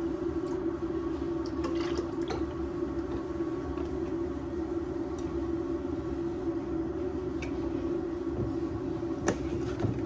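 Liquid poured from paper cartons into a ceramic mug, first milk and then coffee, with a few light clicks, over a steady hum.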